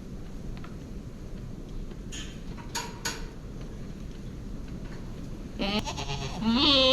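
A goat bleating near the end, a short call followed by a louder, wavering one, over a low steady rumble with a few light knocks earlier on.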